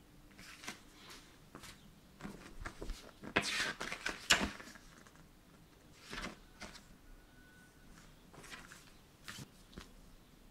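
Paper instruction sheets rustling as they are handled and leafed through, in a run of short rustles that are loudest a little past the middle.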